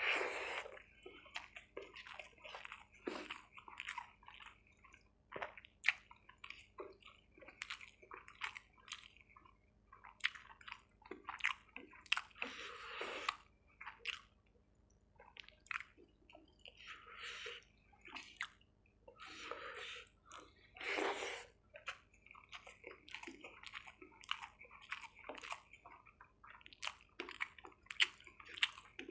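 Close-up eating sounds of chicken curry with yellow rice and green chillies: wet chewing and smacking, broken by irregular sharp clicks and crunches.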